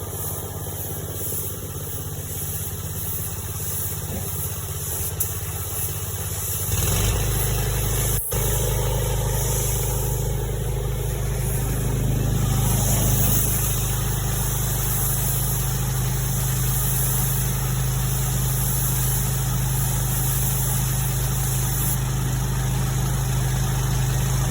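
An engine running steadily, louder from about seven seconds in, with one sharp click shortly after.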